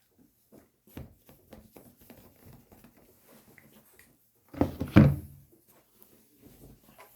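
Handling noises: scattered light clicks and taps, then a louder thump about five seconds in.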